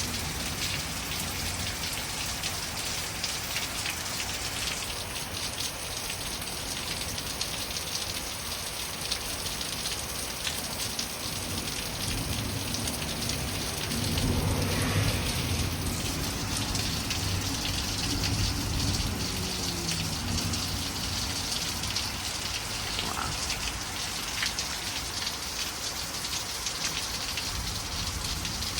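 Heavy rain falling steadily and splashing on hard ground. About halfway through, a low rumble swells and fades over several seconds.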